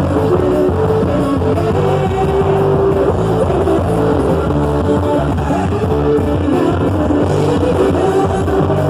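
Loud festa junina dance music with a steady beat and long held melody notes.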